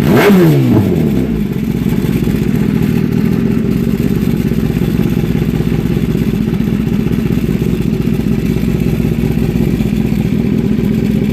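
2016 Kawasaki ZX-10R's inline-four engine running through an open Austin Racing GP1R track exhaust, loud. It gets one throttle blip at the start, then settles to a steady idle.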